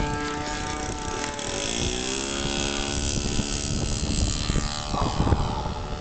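Super Tigre 25cc glow engine of a model biplane running in flight, a steady propeller drone whose pitch drops about two seconds in and then holds level. Wind rumbles on the microphone underneath.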